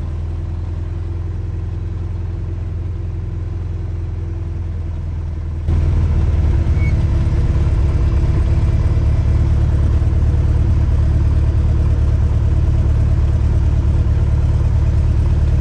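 Van's RV-8's piston engine and propeller running at taxi power, heard from inside the open-framed cockpit: a steady low drone that jumps sharply in loudness a little under six seconds in.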